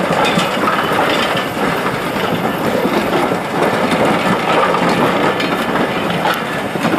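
Maroon British Rail Mark 1 passenger coaches rolling past close by. Their wheels make a steady rumble on the rails, with a few light clicks.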